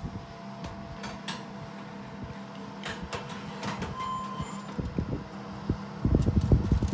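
Wire oven rack sliding into an oven on its metal runners: a few light metallic clicks, then a burst of rattling clunks near the end as the rack is pushed home, over a steady low hum.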